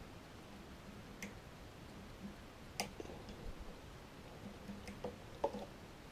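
Faint, scattered metallic clicks of a lever-lock pick working the levers inside a Eurospec Easi-T lever mortice deadlock, about half a dozen irregular ticks. The pick is setting the levers one by one under tension.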